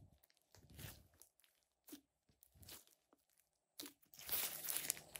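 Thick glossy slime squished by fingers, a few soft separate squelches. About four seconds in it is pulled and stretched and gives a louder, denser run of crackling clicks and pops.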